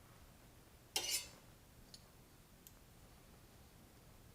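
One brief metal clatter from the wire rack on a foil-lined baking tray as chicken wings are laid on it, followed by a couple of faint ticks.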